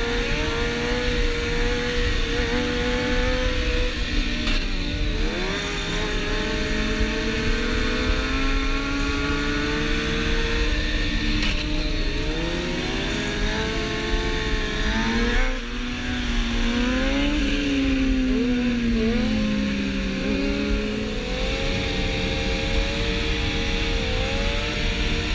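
Several sport motorcycle engines revving on a freeway, their overlapping tones climbing and dropping repeatedly as the riders roll on and off the throttle and shift gears.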